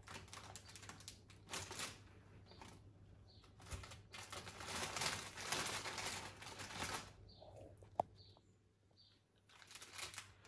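Intermittent rustling and crinkling in several short bursts, with one longer stretch of about three seconds in the middle and a single click about eight seconds in.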